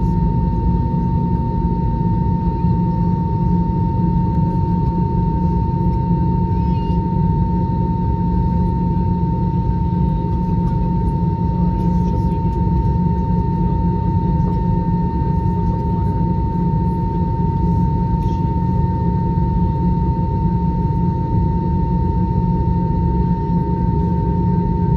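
Steady cabin drone of an Airbus A321 with its CFM56 engines idling on the taxi, heard from a window seat over the wing: a deep rumble with a steady high hum.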